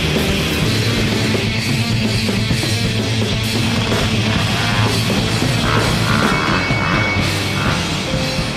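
Loud rock music soundtrack that plays steadily without a break.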